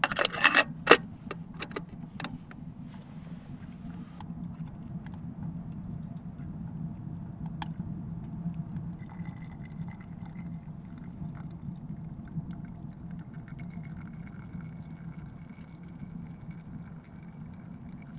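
A metal kettle's handle and lid clinking sharply as it is lifted off a wood stove, then water poured from the kettle into a plastic bottle, filling it in a steady stream. A steady low rumble runs underneath.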